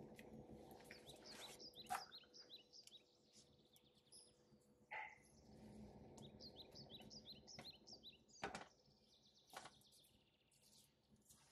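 Near silence, with faint bird chirps in quick runs in the background, twice, and a few soft clicks.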